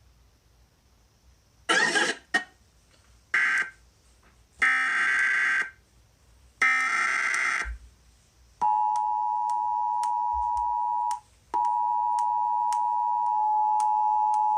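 Emergency Alert System header: four short bursts of harsh digital data, then the EAS attention signal, a steady two-tone pitched tone that starts about eight and a half seconds in and drops out for a moment about eleven seconds in before resuming. Faint regular ticks run through the tone.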